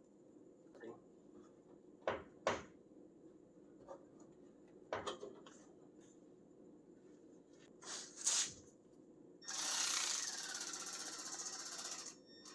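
Several sharp metal clanks from hand tools on the truck's sheet metal, then a power tool running steadily for about three seconds near the end while a fender bolt is removed.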